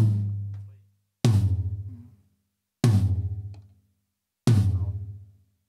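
Floor tom struck three times, about a second and a half apart, each hit ringing low and then cut off sharply: the drum's channel is being soundchecked through a noise gate and compressor.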